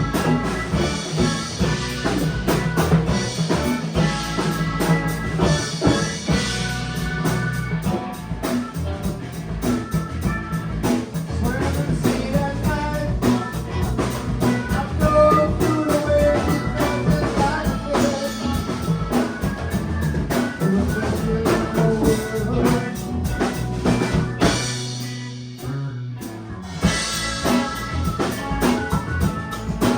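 Rock band playing a song together, drum kit driving the beat over bass and keyboard. The band drops out briefly about five seconds before the end, then comes back in together.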